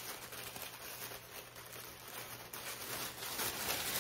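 Tissue paper rustling and crinkling as sheets are pulled apart and handled, faint at first and getting louder near the end.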